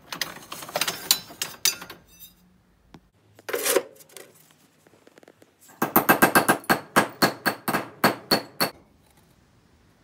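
Scrap copper pipes clattering against each other as a hand rummages through a bin of them, then a hammer striking short copper pipe pieces on a steel plate to flatten them: a fast run of sharp metallic blows, about five a second, the loudest part.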